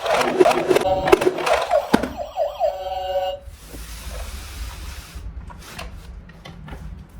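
Electronic toy vehicle siren warbling quickly up and down, with several sharp clacks over it; it cuts off about three and a half seconds in. A soft hiss and a few faint taps follow.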